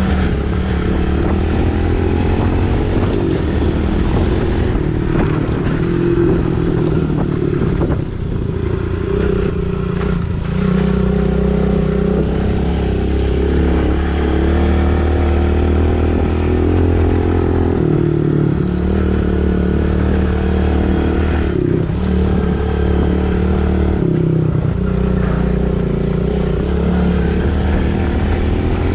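Pit bike engine under way, its pitch rising and falling repeatedly as the throttle is worked, with a few brief drops where the throttle is closed.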